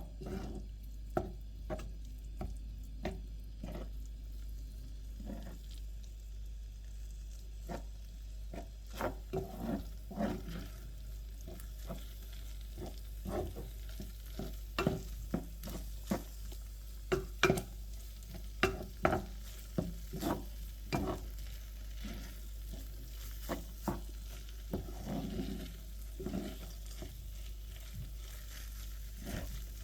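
A utensil scraping and knocking against a pan while rice is stir-fried, with a light sizzle underneath. The clicks and scrapes come irregularly and are busiest in the middle. A steady low hum runs beneath.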